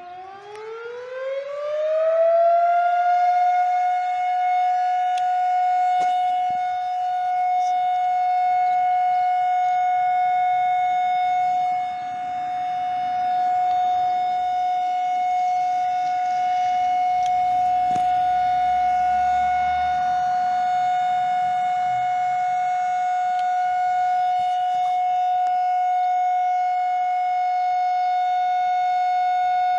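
A siren winds up, its pitch rising over the first two to three seconds, then holds one steady high tone.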